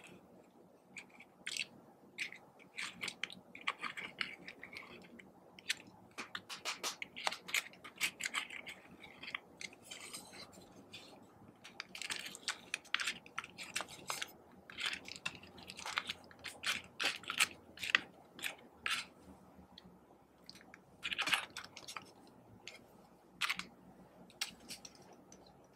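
Spatula scraping and crumbling pressed glitter eyeshadow out of its palette pans: irregular crisp, crunchy scratching and clicking, coming in quick clusters with short pauses between them.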